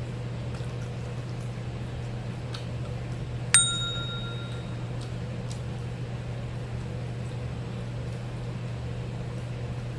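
A single sharp clink about a third of the way in, ringing on with a bright tone that dies away over about a second, over a steady low hum.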